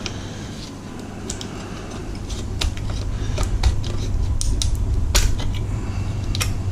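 Scattered small clicks and taps, about a dozen, as the pried-off cartridge-slot connector and the circuit board are handled, over a steady low hum.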